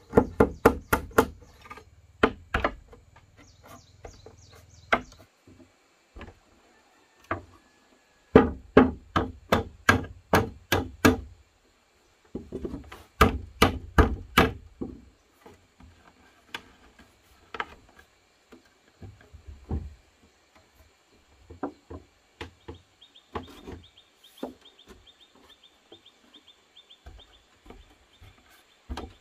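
Chopping blows on wood come in quick runs of about three strikes a second, separated by pauses, and later thin out to scattered lighter knocks.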